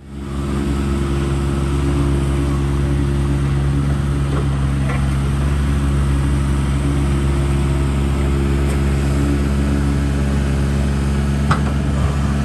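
Diesel engines of construction machinery, a small ride-on double-drum roller and a tracked excavator, running with a steady low drone, with a short knock near the end.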